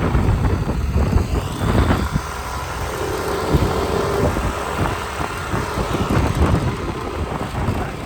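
Road vehicle travelling, its engine and road noise a steady low rumble with wind buffeting the microphone, and a faint steady whine about three seconds in.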